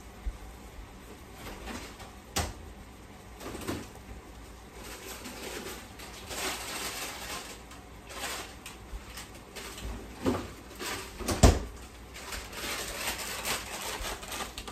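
Teriyaki sauce simmering around steaks in a skillet: soft bubbling and sizzling with many small pops. A sharp knock comes about two and a half seconds in, and a louder one about three quarters of the way through.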